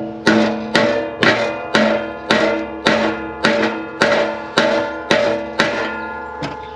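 Hammer driving a steel socket onto a seized nut: a dozen ringing metal-on-metal blows, about two a second, the last few lighter and spaced wider.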